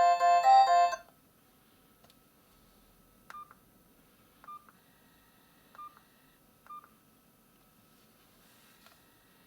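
MaxCom Strong MM917 3G feature phone's loudspeaker playing a ringtone melody of quick repeating notes, which stops abruptly about a second in. Then come four short, fainter key beeps about a second apart as the phone's keypad is pressed.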